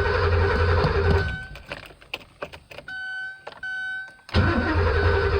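Porsche 928's starter cranking the V8 twice without it firing: a first crank of about a second and a half, then a second crank starting about four seconds in. The engine turns over but won't catch, which the owner thinks might be a fuel pump problem. A steady high electronic warning tone sounds in the pause between the cranks and faintly through them.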